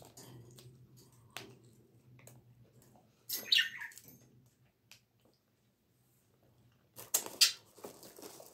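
A caged grey parrot gives one short sweeping whistle-like call about three and a half seconds in. Near the end, plastic packaging rustles and crinkles sharply, louder than the call.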